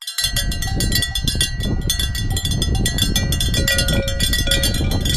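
Dense, continuous jingling and ringing of many small metal bells, with a low rumble underneath. It starts abruptly.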